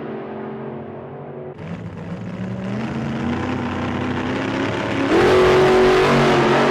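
Honda Rebel CMX250C's air-cooled parallel-twin four-stroke revving on a chassis dyno during a loaded break-in heat cycle after an overhaul, run up and down through the rpm to seat the new rings. The revs fall off, climb again, then jump louder about five seconds in and hold.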